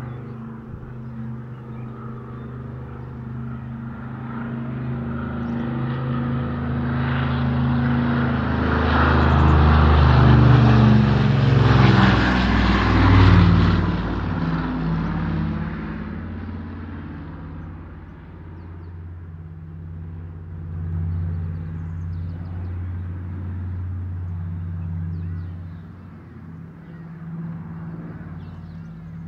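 Douglas DC-4 Skymaster's four radial piston engines droning as the aircraft flies over. The drone swells to its loudest about halfway through, drops in pitch as the plane passes, then eases back to a quieter steady drone.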